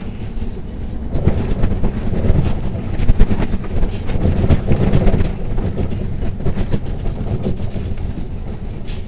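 Inside a Neoplan city bus driving over a rough, broken road surface: a steady low rumble with the body and fittings rattling and clattering over the bumps, heaviest in the first half.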